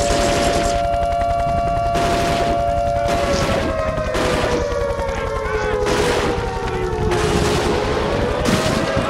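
Outdoor warning siren sounding two tones at once. The pitch holds steady, then slides down over several seconds and climbs back near the end, over a rapid rattling clatter.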